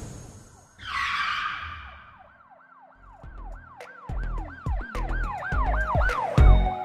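Intro sound effects: a whoosh about a second in, then a siren-like wail that rises and falls about three times a second, over deep bass hits that build toward the end.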